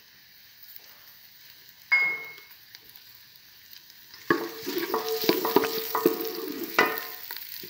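Chopped onions sizzling in oil in a metal pot, stirred with a spatula from about four seconds in: dense scraping and clicking of the spatula against the pot over the frying hiss. Before that it is mostly quiet, with one sharp clank and a short ring about two seconds in.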